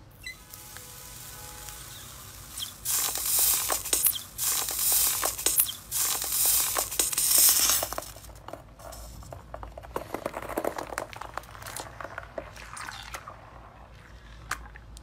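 Metal potato masher pressed and stirred through a tub of foamy slime: wet squishing with crackles and pops, loudest in a run of presses from about three to eight seconds in, then softer squelching as the slime is worked and lifted.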